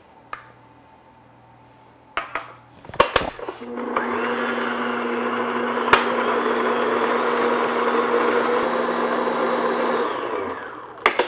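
A few knocks and clicks, then an electric stand mixer starts and its motor runs steadily for about six seconds, beating an egg into creamed butter and sugar in a glass bowl, before winding down near the end.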